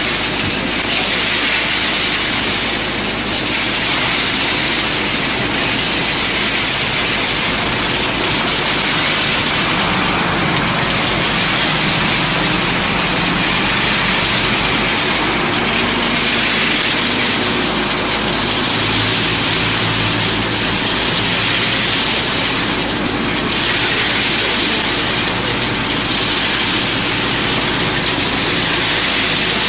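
EP ESF30 concrete reclaimer (sand and gravel separator) running steadily: a continuous rushing, hissing machine noise as washed gravel spills from its stone outlet.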